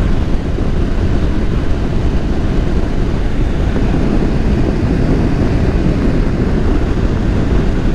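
Steady wind rush and road noise of a BMW R 1200 GS motorcycle cruising on the highway, with wind buffeting the rider's microphone.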